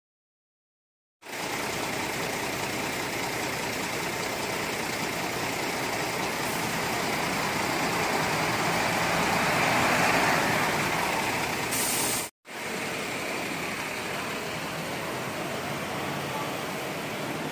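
Diesel engine of a highway coach running as the bus pulls slowly past, growing louder to a peak about ten seconds in. After a sudden cut, another bus engine runs steadily as the bus approaches.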